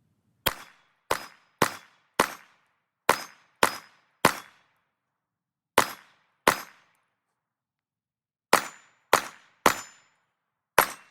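9mm Glock pistol firing thirteen shots at a steady pace, in loose strings of two to four with short pauses between. Each shot is a sharp crack with a brief decaying tail.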